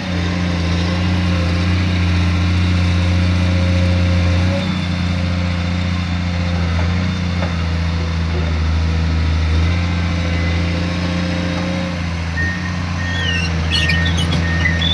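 Komatsu PC210 hydraulic excavator's diesel engine running steadily under working load, its note dipping and rising a couple of times as the hydraulics work. A short squeak comes in near the end.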